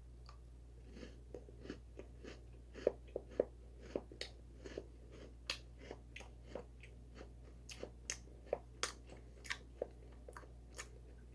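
Close-up crunching and chewing of a Bourbon Alfort chocolate-topped biscuit: irregular crisp crunches, about two a second, as the thick biscuit breaks up in the mouth.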